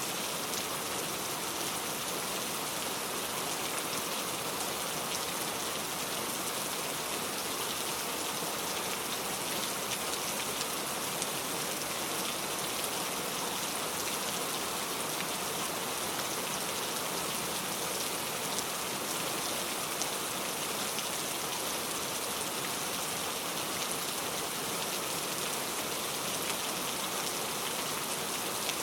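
Heavy rain falling steadily, a dense hiss of drops striking a surface with fine individual drop ticks throughout.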